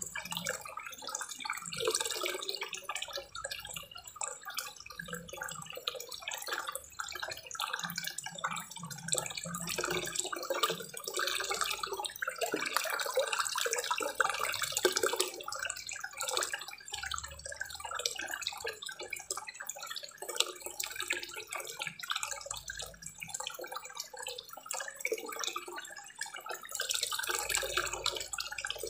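Small waterfall spillway pouring into a koi pond: a steady splashing of falling water on the pond surface.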